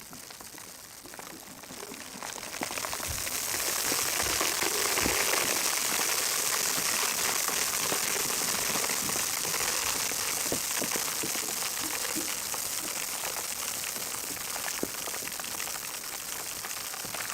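Food sizzling and crackling as it cooks on a hot surface or in oil, swelling over the first few seconds to a steady hiss with fine popping.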